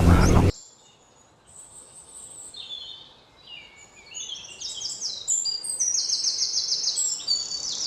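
A loud noisy sound cuts off sharply about half a second in. Songbirds then start singing, first faintly and then louder and busier. Several chirping calls overlap, with quick repeated trills near the end.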